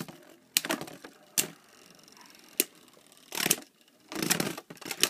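Two plastic Beyblade spinning tops battling in a plastic stadium: a string of sharp clacks and short rattles as they hit each other and the stadium wall, with a faint high whir from the spinning tops between hits.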